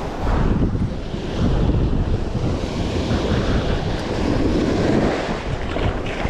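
Ocean surf washing onto the beach, with wind buffeting the microphone in uneven gusts.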